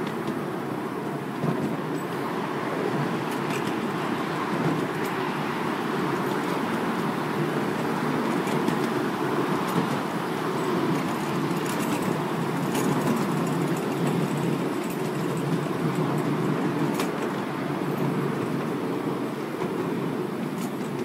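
Ride-on miniature railway train running along its track, heard from a passenger carriage: a steady rumble of wheels on rails with occasional light clicks.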